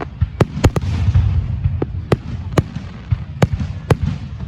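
Fireworks display: aerial shells bursting in irregular succession, about seven sharp bangs with smaller cracks between them, over a continuous low rumble.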